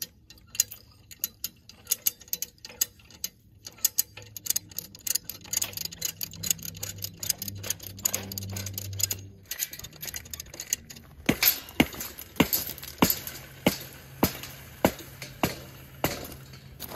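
Come-along hand winch ratcheting as the woven-wire fence is pulled tight through a fence stretcher. The sharp metal clicks are scattered at first, then settle after about eleven seconds into a steady run of about two a second.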